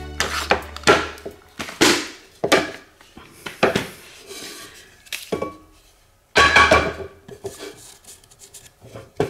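Handling knocks and clatter as a Quick-Grip bar clamp is released and a pine block is moved and turned over on the pillar drill's table, with the loudest clatter about six and a half seconds in. A low hum fades out in the first two seconds.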